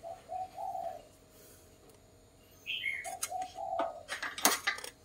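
A dove cooing in short, low notes, in two groups with a quiet spell between. A higher chirp comes just before the second group, and there are two sharp clicks, the louder one near the end.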